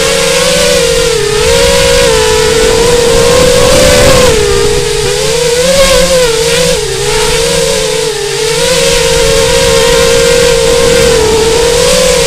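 FPV quadcopter's electric motors and propellers whining continuously, the pitch rising and dipping over and over as the throttle changes.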